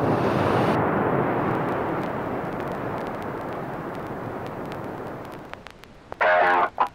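A steady rushing noise that slowly fades away over several seconds, then guitar music starts abruptly near the end.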